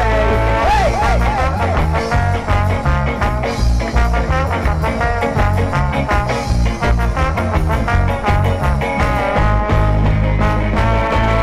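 Live band playing an upbeat ska-style instrumental passage, with a heavy bass line and a steady beat under sustained melody notes.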